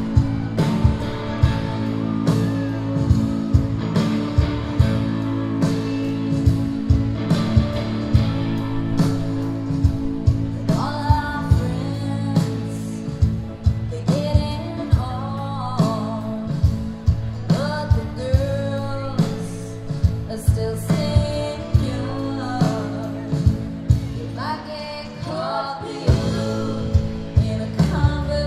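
A live rock band, with drums, electric and acoustic guitars and bass, plays a steady beat. A woman's lead vocal comes in about ten seconds in. It is heard as an audience recording from the crowd.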